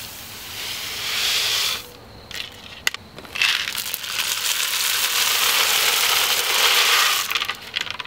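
Dry grain poured from a plastic bucket into a metal pot of birdseed: a rushing, pattering hiss of the grains landing. Two pours, a short one at the start and a longer one from about three seconds in, with a lull and a single click between them.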